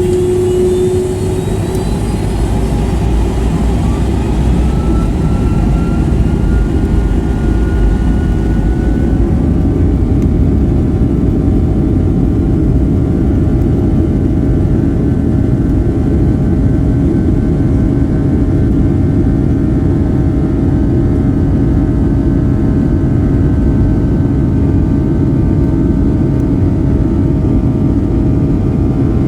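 Boeing 757-300's twin jet engines heard from inside the cabin, their whine rising in pitch over the first several seconds as they spool up, then running steady and loud with a deep rumble beneath: the aircraft at takeoff thrust.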